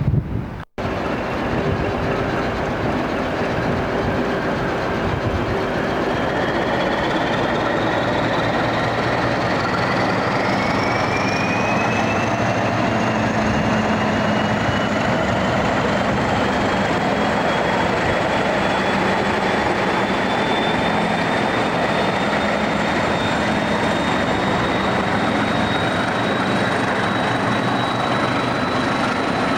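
Train running and picking up speed, with a steady rumble and a whine that rises slowly in pitch for about twenty seconds and then holds steady.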